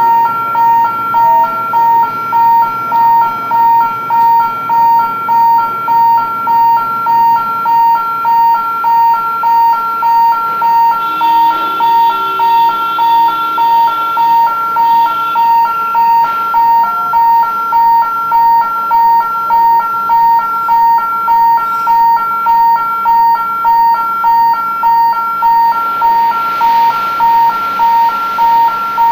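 Industrial warning beeper sounding a steady run of short beeps, just under two a second, each made of two high tones together.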